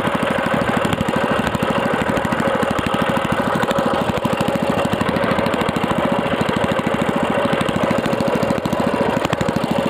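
Small engine of a wooden fishing boat running steadily under way, a fast, even pulse of firing strokes.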